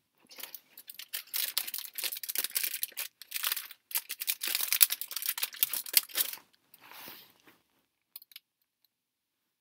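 Knit sweater fabric rubbing and rustling right against the camera's microphone: a dense crackly scratching for about six seconds, then a softer rustle and a couple of small clicks.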